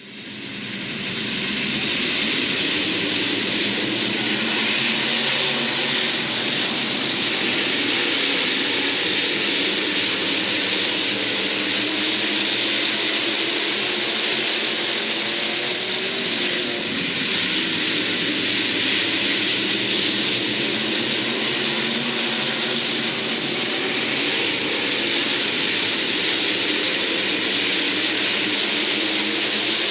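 A pack of IMCA SportMod race cars running laps on a dirt oval, many V8 engines at speed blending into one loud, steady noise. It fades in over the first second or two.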